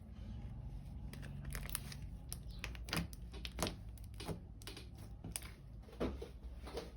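Homemade glue slime being kneaded and stretched by hand, giving off irregular small clicks and sticky snaps.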